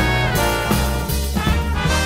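Background swing music with brass instruments over a steady bass and drum beat.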